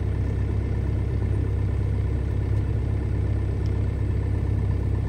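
John Deere 35G compact excavator's diesel engine idling steadily.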